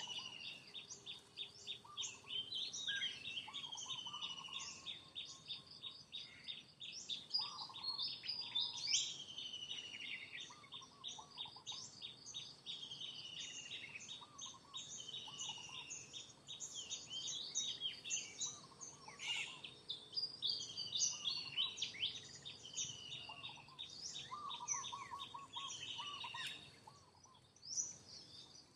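Several birds singing and calling together: many quick high chirps and short falling whistles overlapping, with a few lower, shorter calls among them.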